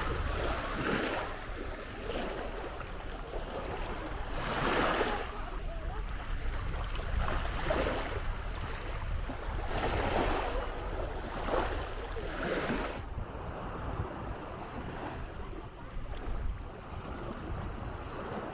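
Small sea waves breaking and washing up the beach, swelling every few seconds, with wind rumbling on the microphone. The hiss turns duller for the last few seconds.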